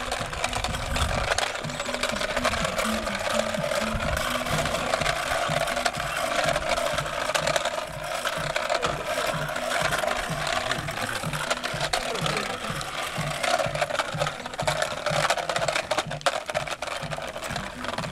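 Small plastic toy car dragged on a string over rough stone and dirt ground, its wheels rattling and clattering with an even knocking rhythm of about two to three a second.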